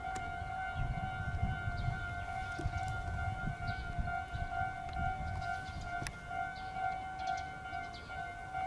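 Railway level-crossing alarm ringing: one steady high tone with a fainter overtone above it, which keeps going without a break. A low rumble sits under it in the first few seconds.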